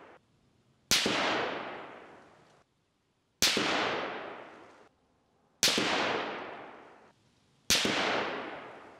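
Four rifle shots from a Sabatti Tactical EVO in 6.5 Creedmoor fitted with a muzzle brake, a little over two seconds apart. Each is a sharp crack followed by a long echoing tail that fades away.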